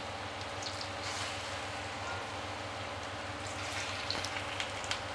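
Masoor dal fritters deep-frying in hot oil in a pan: a steady sizzle with small crackles and pops, more of them near the end.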